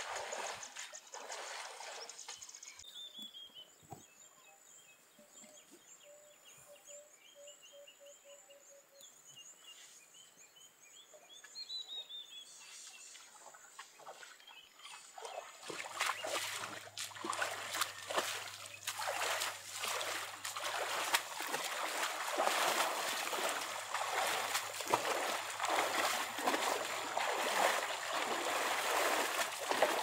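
Elephants wading through a shallow river, the water splashing and sloshing around their legs. A quieter stretch in the first half carries birds chirping. From about halfway, the splashing comes louder and denser over a steady low hum.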